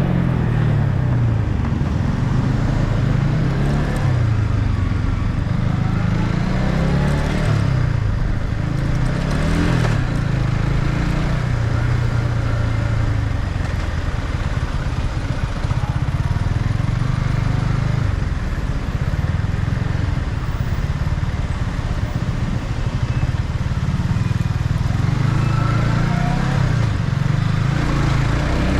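Yamaha MT-15's single-cylinder engine through its stock exhaust under way, its pitch rising and falling several times with throttle and gear changes, over steady wind and road noise.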